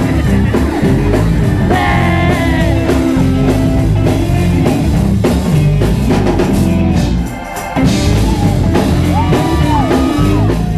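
Gospel praise music: voices singing over a band with a strong bass line and drums. The level drops briefly a little after seven seconds.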